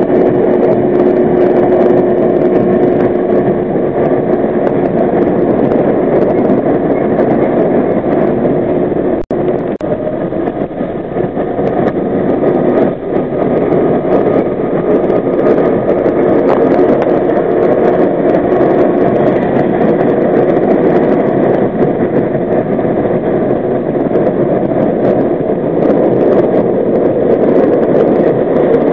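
R32 subway car running through a tunnel, heard from inside the front car: a loud, steady noise of wheels on rail and running gear. The sound briefly drops out about nine seconds in.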